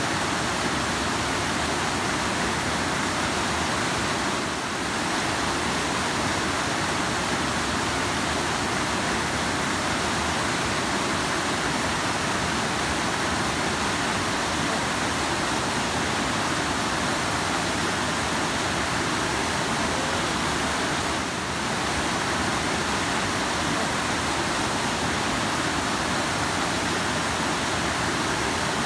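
River water rushing steadily, a dense even roar with no separate splashes. It dips slightly twice, briefly.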